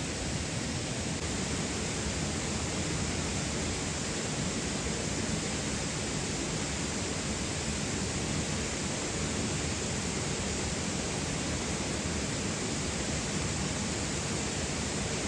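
Steady rushing of a waterfall, an even roar of water with no break or change.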